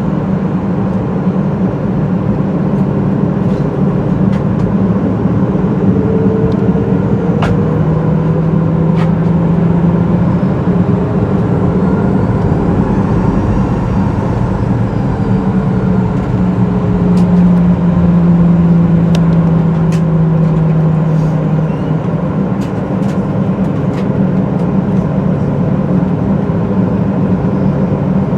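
Cabin drone of a Boeing 737-800's CFM56-7B engines running steadily while the jet taxis out for takeoff, a constant rumble with a low hum that slowly shifts in pitch. A few light clicks and rattles sound over it.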